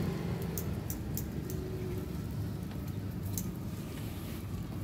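Low steady rumble of road traffic trailing off after a passing vehicle, with scattered sharp clicks of metal tongs at a charcoal grill.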